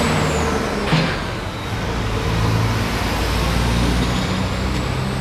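Heavy machinery engine running steadily, its pitch shifting up and down, with a single sharp knock about a second in.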